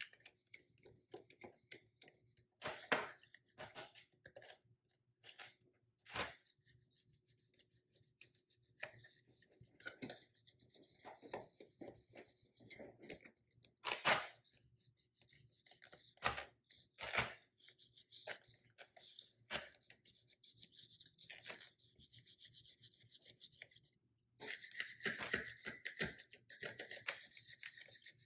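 A squeegee rubbing and scraping perforated vinyl decal film against car window glass in irregular strokes as the decal is worked into the corners and sides, with a few sharper scrapes and a steadier run of rubbing near the end.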